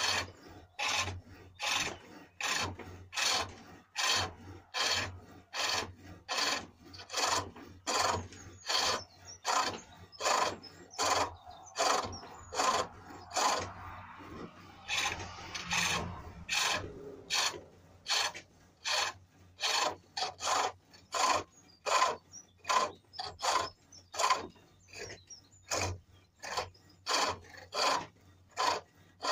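Cranked bowl-turning hook cutting the inside face of a small cherrywood bowl on a pole lathe: a rhythmic scraping of steel on wood, roughly two strokes a second, following the back-and-forth spin of the work. Around the middle the strokes run together into a longer continuous scrape.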